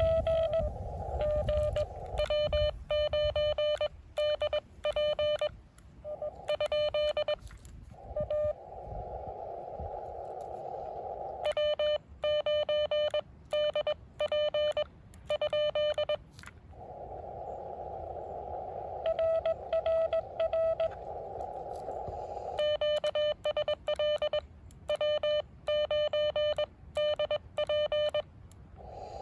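Morse code (CW) from an amateur radio transceiver: a steady pitched tone keyed on and off in dots and dashes. The keyed passages alternate with stretches of narrow-filtered receiver hiss, and in the second of these a fainter Morse signal comes through.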